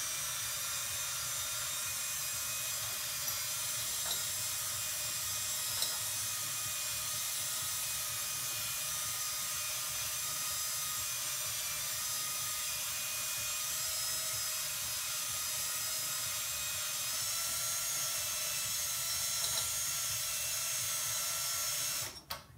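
Cordless drill spinning a cylinder hone inside a Harley Sportster cylinder, cross-hatching the lubricated bore so new piston rings can seat. A steady motor whine with the hone scraping the bore wall, cutting off suddenly near the end.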